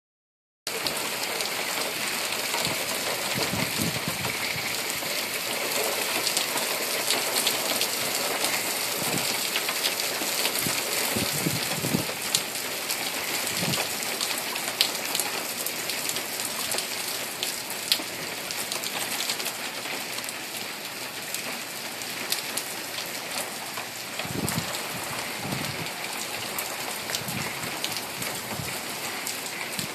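Thunderstorm rain falling steadily, with sharp ticks from drops landing close by.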